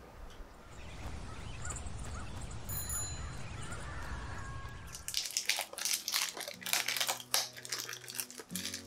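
A low, even hum of distant city ambience. About five seconds in it gives way to an empty plastic cooking-oil bottle crinkling and crackling in the hands as it is turned and squeezed.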